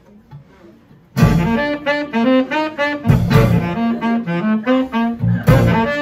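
Student jazz group playing live: a saxophone plays a quick melody over a low accompaniment, starting suddenly about a second in after a moment of quiet room sound.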